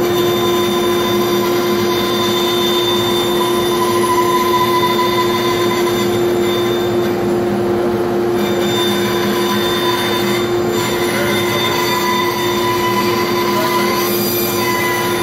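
Powermatic vertical band saw and its shop vacuum running together: a loud, steady machine drone with a strong held hum and a high whine over it.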